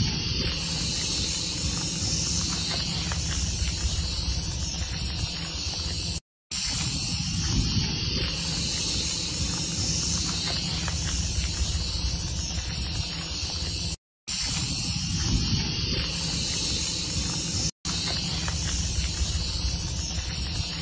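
Rattlesnake shaking its tail rattle: a steady, dry buzz, cut off by three short gaps.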